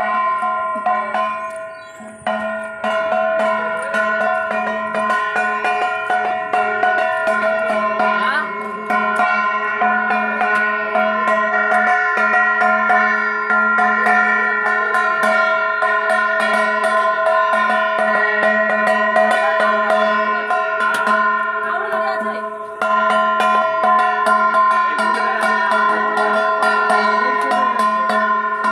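Puja bells ringing continuously with devotional music: rapid metallic strikes over steady ringing tones. The sound dips briefly about two seconds in and again near the 23-second mark.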